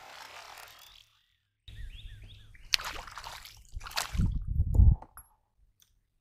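Hooked bass thrashing at the surface beside a kayak, with a few sharp splashes a little over halfway through and a louder low rumble of water and handling just after.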